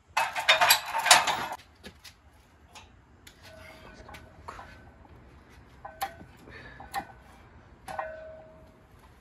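A loud rush of noise for about a second and a half at the start. Then barbell weight plates clink and ring on the bar as a squat is done, with sharper clinks about six, seven and eight seconds in, the last ringing on briefly.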